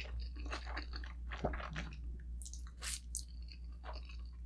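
Close-miked chewing of a mouthful of fried egg noodles: wet smacking and crackly bites, with a few sharp mouth clicks near the middle.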